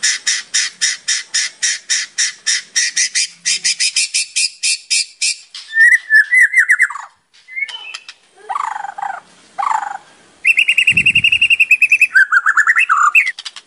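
White-rumped shama (murai batu) singing. It opens with a fast run of identical sharp notes, then breaks into varied trills and short phrases, with a long rapid trill a few seconds before the end.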